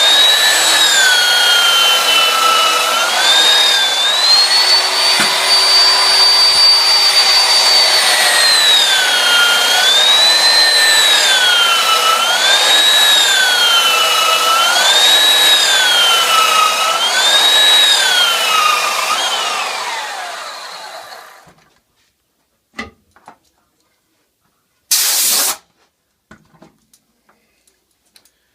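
Belt sander with a worn 220-grit belt running on a board, its whine rising and falling in a steady rhythm about every two and a half seconds. It winds down about nineteen seconds in and stops. A couple of small knocks and a short hiss follow near the end.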